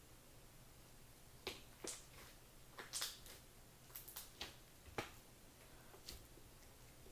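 A few scattered light clicks and taps, about half a dozen spread over several seconds, over a faint steady hum.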